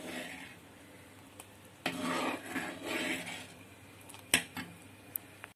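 A steel ladle stirring thick kadhi (buttermilk and gram-flour curry) in a clay pot: liquid swishing in two stretches, then one sharp clink of the ladle against the pot about four seconds in, with a couple of lighter taps after it.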